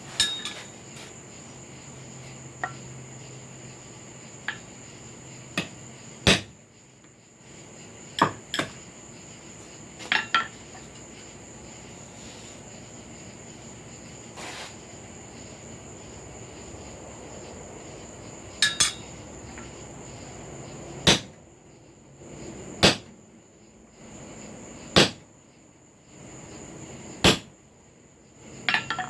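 Hand hammer striking a steel punch to drive a hole through the hot, flattened end of a cut flooring nail on a wood block: single sharp metal strikes one to several seconds apart, a few in quick pairs.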